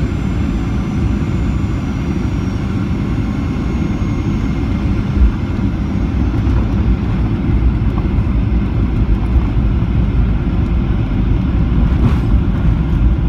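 Cabin noise of a Boeing 737-800 landing: a steady rush of airflow and CFM56 engine noise, with a brief low thump about five seconds in as the wheels touch down. The noise grows a little louder near the end as the jet rolls out on the runway.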